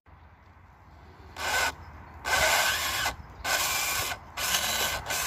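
FTX Outback Fury RC crawler's drivetrain run in four short bursts, each a gritty rasp with a steady whine through it. It is the sound of its noisy metal-geared gearbox after a day of abuse in mud and water.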